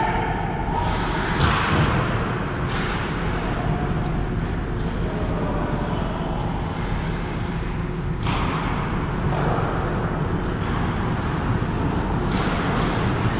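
Ice hockey rink during play: a steady low rumble of arena noise with four sharp knocks spread through it, the clacks of sticks and puck on the ice and boards.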